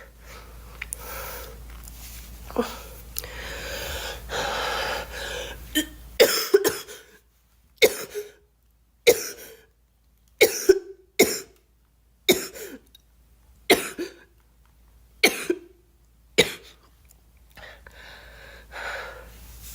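A girl coughing: breathy throat-clearing and breathing for the first few seconds, then about a dozen short, sharp coughs, singly and in quick pairs, from about six seconds in, with more breathing near the end.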